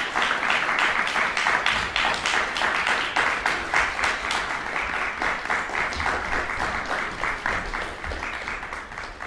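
Audience applauding, a dense steady clapping that gradually dies down toward the end.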